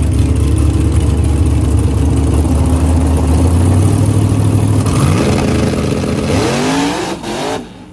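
A Dodge Challenger drag car's engine at the starting line: a loud steady low drone, then from about five seconds in the revs climb steadily. The sound drops away abruptly just before the end.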